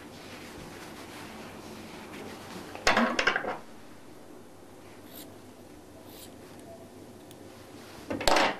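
A bandage being wrapped around a patient's forearm, with two short, loud rustling bursts of handling noise: one about three seconds in, the other just before the end.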